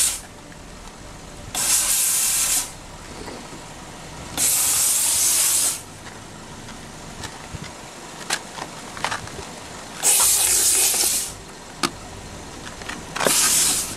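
Vapor Rino commercial vapor steam cleaner's hand gun blasting steam in four bursts of a second or so each, a loud hiss with quieter gaps between.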